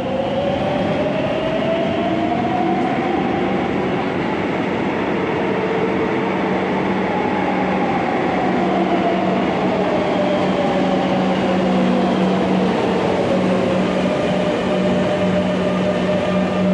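Electric metro trains running through an underground station: a steady rumble of wheels on rails under a traction-motor whine that rises in pitch over the first few seconds and falls again about ten seconds in. A low steady hum joins about ten seconds in.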